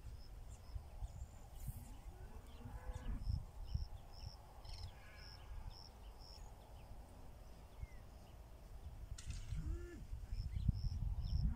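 Farm livestock calling a few times in the distance, short rising-and-falling calls about two and a half seconds in and again near the end. Under the calls runs a high chirp repeating about three times a second, with irregular low rumbling.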